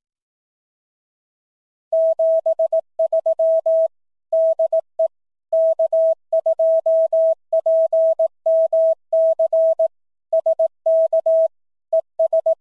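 Morse code sent as a single steady-pitched beep, keyed in short and long elements, starting about two seconds in.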